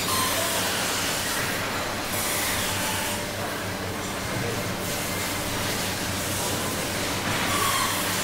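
Overhead carcass rail conveyor in a slaughterhouse running, with a steady machine hum and faint metal squeals now and then from the trolleys carrying hanging beef carcasses.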